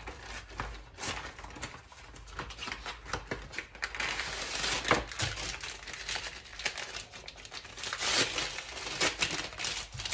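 Wrapped puff pastry sheet being pulled from its cardboard box and unwrapped, the packaging crinkling and rustling in handfuls, busier about four seconds in and again near the end.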